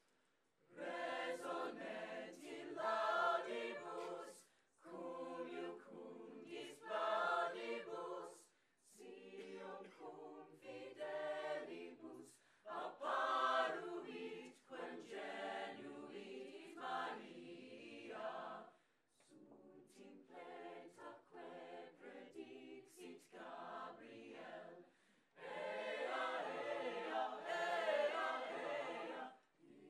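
A mixed-voice high-school chamber choir singing in several-second phrases with short breaths between them, starting about a second in. It softens for a passage about two-thirds of the way through and swells again near the end.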